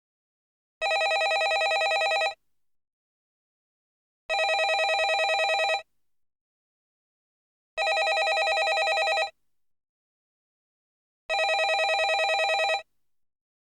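Landline telephone ringing in a steady cadence: four rings of about a second and a half each, one every three and a half seconds or so, each ring a fast trill, with silence between.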